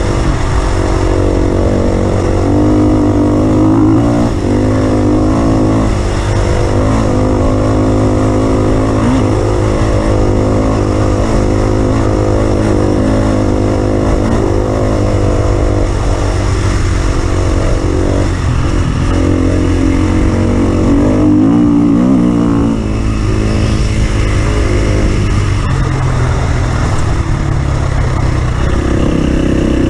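Off-road vehicle engine running continuously, its pitch rising and falling as it is revved up and eased off several times.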